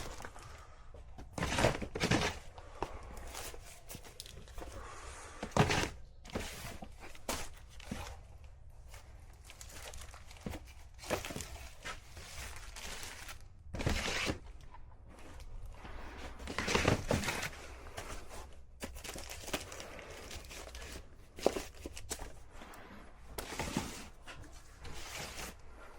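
Footsteps and scattered thunks with crinkling and rustling, as parts and their packaging are handled and searched through.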